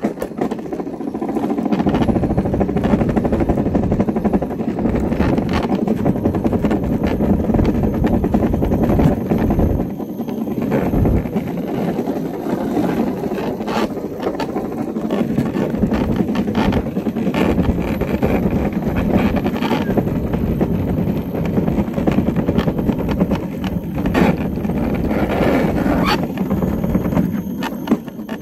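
Steady rolling rumble and rattle of an unpowered gravity scooter's wheels and frame on asphalt as it coasts downhill, with frequent small knocks. The noise dips briefly about ten seconds in.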